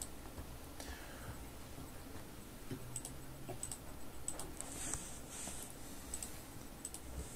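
Scattered light clicks of a computer mouse, several in the second half, over a faint low hum.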